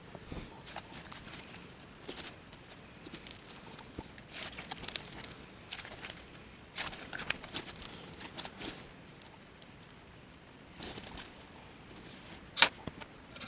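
Hands kneading and stretching freshly mixed Elmer's glue slime, with irregular sticky squelches and crackles, and one sharp click near the end.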